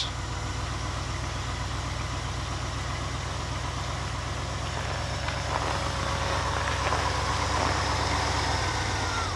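Jeep Grand Wagoneer engine idling steadily just after a cold start.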